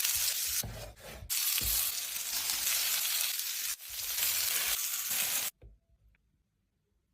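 Loud sizzling, like food frying hot, with a couple of brief breaks, cutting off abruptly about five and a half seconds in.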